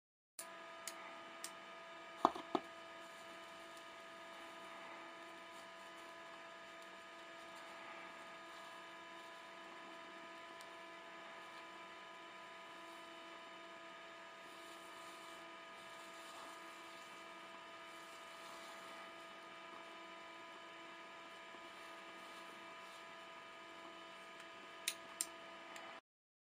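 Homemade high-power blue diode laser rig running: a low, steady electrical hum made of several fixed tones. It is broken by a few sharp clicks near the start and two more near the end.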